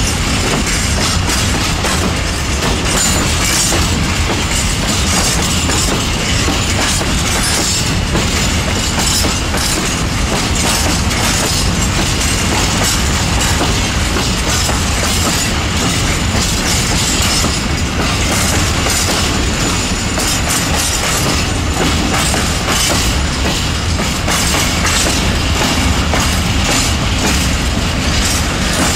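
Freight train of open-top gondola wagons rolling slowly past, a steady loud clatter and rumble of steel wheels. The wagons are taking the station's side route over track in poor condition, which makes the passage noisy.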